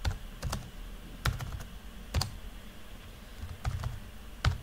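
Typing on a computer keyboard: a string of separate, irregularly spaced key clicks with short pauses between them. The loudest click comes near the end.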